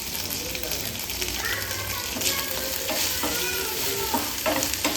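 Chopped small onions, green chillies and curry leaves sizzling and crackling in hot oil in a pan while being stirred. A spatula scrapes and knocks against the pan a few times.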